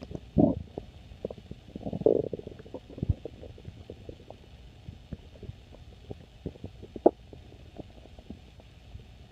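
Stomach growling and gurgling: two longer gurgles in the first couple of seconds, then scattered small pops and bubbling, with one sharper pop about seven seconds in.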